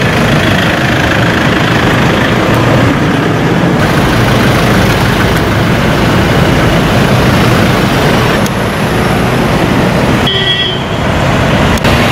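Road traffic noise from a convoy of cars and SUVs driving past, loud and steady. A brief high-pitched tone sounds about ten seconds in.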